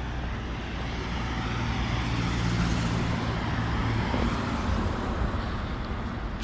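Street traffic: a motor vehicle's engine hum close by, growing louder about two to four seconds in and then fading as it passes, over general road noise.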